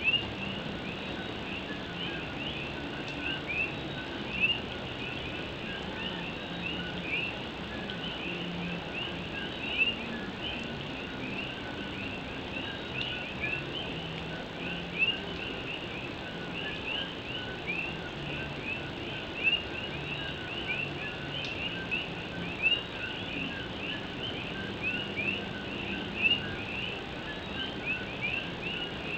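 Chorus of common coquí frogs calling at night: many overlapping two-note 'co-qui' calls, each ending in a short rising whistle, repeating without pause over a steady hiss of rain.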